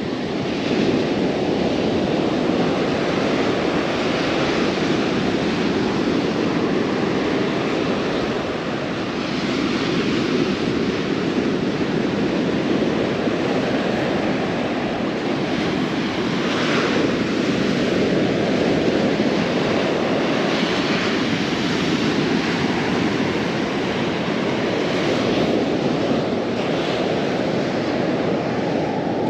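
Ocean surf: a steady rushing wash of waves, with a wave breaking and washing in every few seconds.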